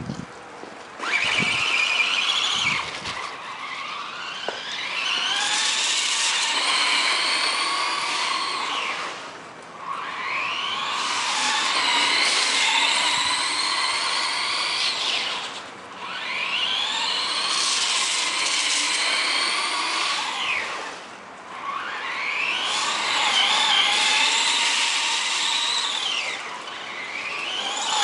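Electric motor and drivetrain of a radio-controlled car whining through about five runs. Each run rises in pitch as the car speeds up, holds for a few seconds and falls away as it slows, with short lulls between.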